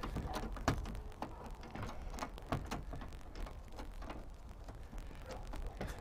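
Scattered light clicks and taps of a steel chain and a homemade welded-chain mirror bracket being handled and locked in place with gloved hands, over a low rumble.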